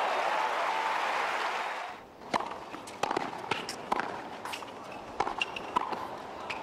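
Crowd applauding in a tennis stadium, cut off abruptly about two seconds in. Then a hard-court rally follows: sharp pops of a tennis ball struck by rackets and bouncing, roughly one a second, with shoes squeaking on the court between them.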